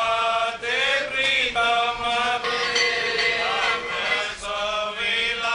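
Male voices singing Sikh devotional chant over a steady held drone note.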